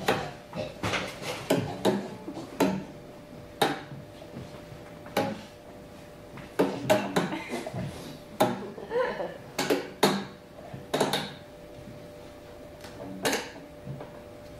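A dozen or so sharp knocks and clicks at uneven intervals, like hard objects being handled or struck on a wooden stage, with a few brief vocal sounds around the middle.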